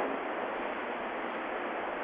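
A steady, even hiss of background noise, with no other sound in it.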